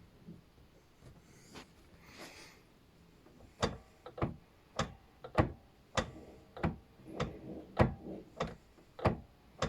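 Knocking from play in the housing of an Einhell BT-TB 13 E Digital pillar drill: after a few seconds of faint handling, about ten sharp clacks come at a steady rate, a little under two a second. The knocking is the sign of looseness in the drill's housing.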